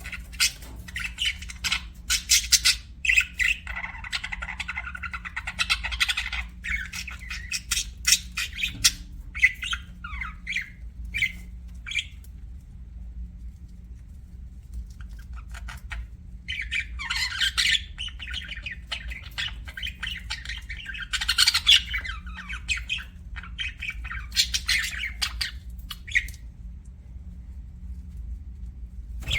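Budgerigars chirping and chattering in two long spells, with a pause of about four seconds between them and quiet again near the end. A low steady hum runs underneath.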